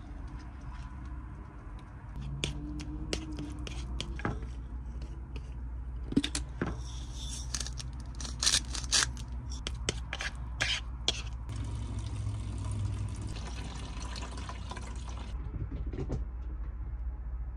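Spoon and fork working avocado in a plastic bowl: wet squishing with scattered metal clicks and scrapes against the bowl, then a few seconds of steady grinding hiss from a hand grinder held over it. A steady low hum runs underneath.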